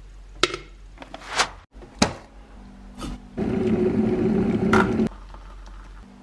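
A few sharp pops from popcorn kernels popping in a lidded pot, then about two seconds of an electric kettle's rushing noise as it heats water, which cuts off suddenly.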